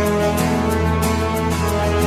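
Opening background music: sustained held chords over a steady low bass note.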